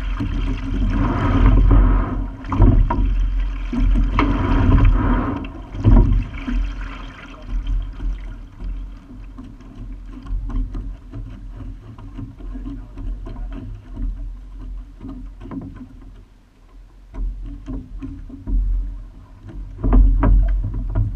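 Water washing along the hull of a single rowing scull, with wind buffeting the microphone, heaviest for the first several seconds and again near the end. Short knocks come at each stroke from the oars working in their gates.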